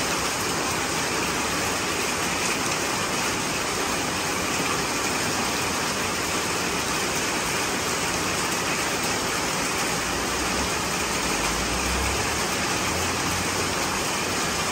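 Heavy rain falling steadily on a wet concrete yard, a constant even hiss. A low rumble swells for a few seconds near the end.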